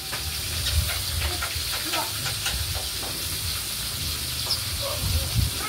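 Whole fish deep-frying in hot oil in a wok, a steady sizzle, with a few light scrapes as a metal spatula turns them. A low rumble runs underneath.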